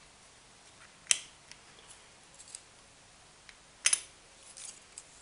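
Thin carbon-fibre drone frame plates clicking against each other and the table as they are handled. Two sharp clicks, about a second in and just before four seconds in, with lighter ticks between and near the end.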